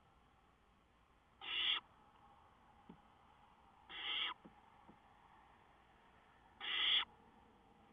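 Barn owl owlets giving their rasping, hissing begging call: three short hisses about two and a half seconds apart, with a few faint ticks between them.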